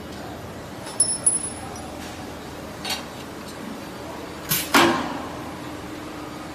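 Pneumatic spot welding machine working: two sharp clicks about a second in, then a loud metallic clank about four and a half seconds in, followed by a faint steady hum.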